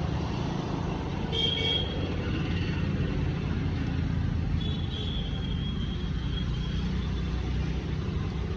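Steady road traffic noise, with short high horn toots about a second and a half in and again from about five seconds on.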